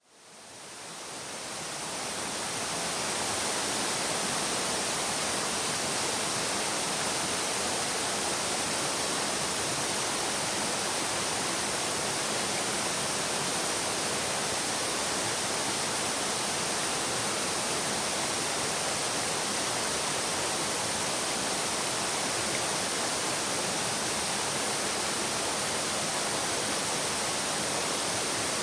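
Shallow stream babbling: a steady, continuous rush of running water that fades in over the first few seconds.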